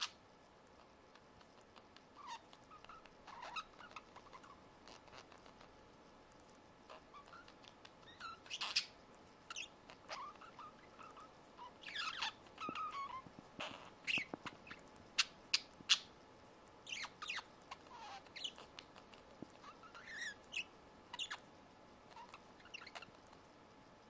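Pair of budgerigars making soft, irregular chirps and short clicks while beak to beak, busiest in the middle stretch.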